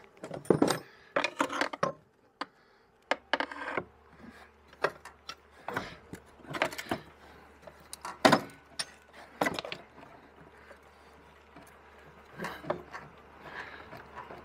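Irregular metallic clinks and knocks of hand tools and loose parts being handled while unbolting a snowmobile chain case, with a faint low hum underneath.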